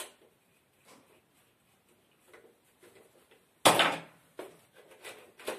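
Handling noise from hard objects: a few faint clicks, then a sudden loud clatter a little over halfway through, followed by several smaller knocks.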